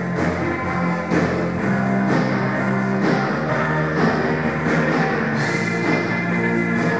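Rock band playing a song live on electric guitar, bass and drums.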